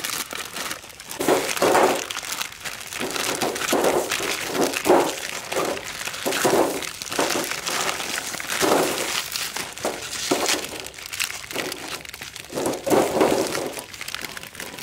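Plastic instant-noodle packets crinkling and tearing as they are opened one after another in uneven bursts, with dry noodle blocks dropping onto a metal tray.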